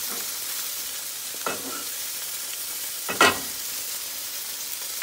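Beaten eggs sizzling steadily in a hot pan while a spatula stirs them. The spatula clatters against the pan twice, once about a second and a half in and again, louder, about three seconds in.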